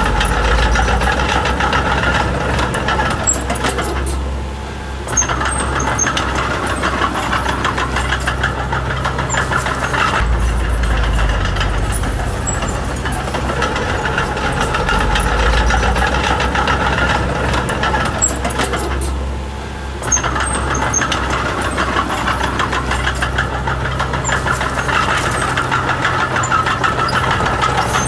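Diesel engine of a D20P mini bulldozer running steadily. The sound dips twice, about fifteen seconds apart, and picks back up suddenly each time.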